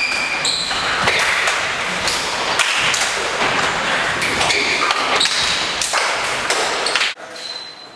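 Many players doing burpees together on a hard gym floor: a dense clatter of hands and feet thudding down, with brief high squeaks. It cuts off abruptly about seven seconds in.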